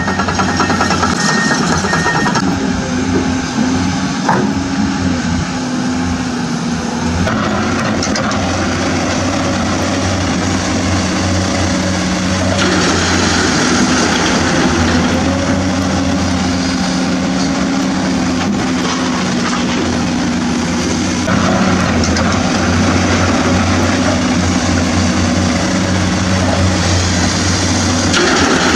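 Steady engine drone of an excavator running, a low rumble with a constant hum. Its tone shifts in stretches every few seconds.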